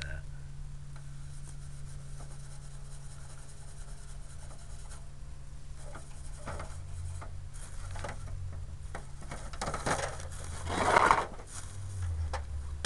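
Fingers rubbing and scraping over a car hubcap at spots of tree sap, mixed with handling noise. The sounds are faint and scattered, with a louder rough scrape or rustle near the end.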